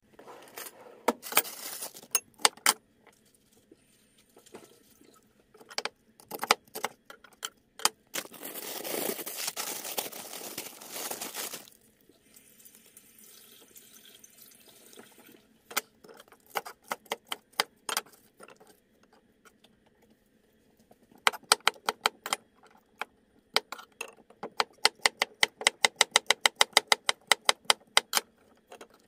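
Knife chopping vegetables on a wooden cutting board: quick, even strokes of about four a second in the last few seconds. Earlier, scattered clicks from handling packaging and utensils, and a steady rush of noise for about four seconds near the middle.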